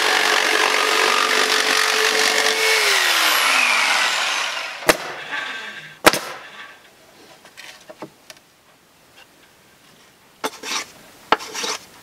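A Bosch jigsaw cuts a western red cedar shingle for about four seconds, the motor winding down in pitch as the trigger is let go. Two sharp knocks follow, and a few short scraping sounds come near the end.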